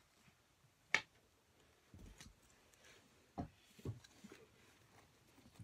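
Faint handling sounds of plush toys being pulled from a bin and the bin being tipped: soft rustles and a few light knocks, with one sharp click about a second in.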